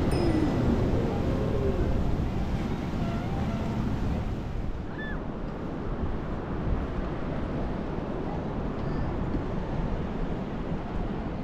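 A steady rush of ocean surf mixed with wind on the microphone, with passing voices fading out in the first second.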